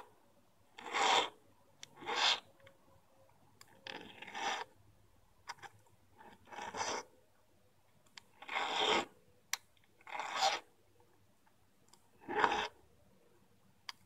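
A needle file rasping across the setting of an 18ct gold ring in about seven separate strokes at uneven intervals, each under a second long, as the setting is shaped and cleaned up.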